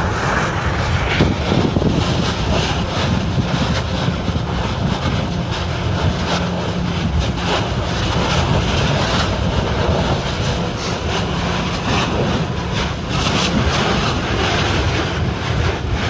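Kilauea lava fissure erupting: a loud, steady, deep roar with a few short sharp cracks.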